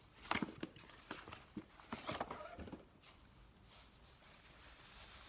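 Cardboard box being handled and opened, with a quick run of taps and knocks in the first three seconds, then soft rustling as the fabric makeup bag is handled.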